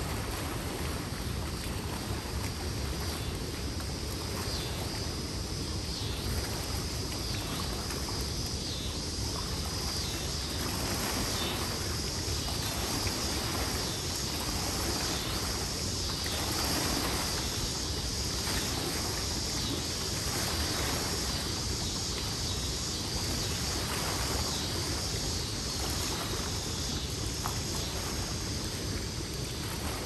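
River waterfall: water rushing and splashing over the falls in a steady, unbroken wash of sound.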